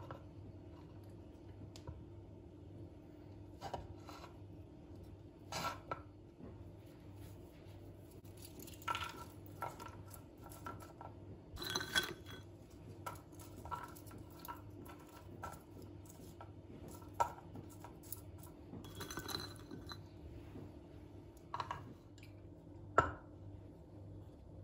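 Scattered light clinks and knocks of dishes and utensils being handled in a kitchen, over a faint steady hum.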